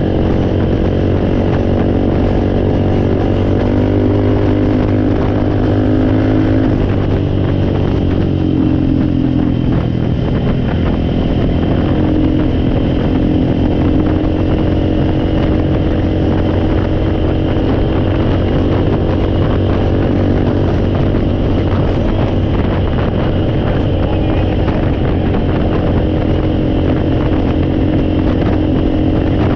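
Four-wheeler (ATV) engine running, settling from a higher speed to a steady idle about seven seconds in.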